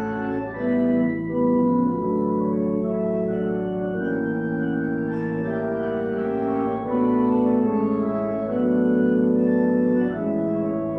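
Pipe organ playing slow sustained chords that change about once a second, over a steady held bass note.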